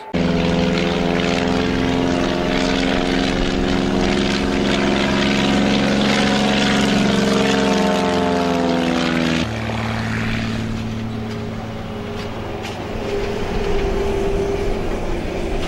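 Propeller engine of a low-flying crop-duster airplane droning, its pitch dipping slightly as it passes. About nine and a half seconds in, the sound cuts abruptly to a lower, quieter engine drone that swells again near the end.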